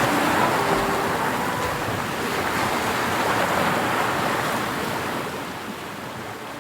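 Sea waves breaking and washing onto a beach, a steady rushing surf that fades down over the last couple of seconds.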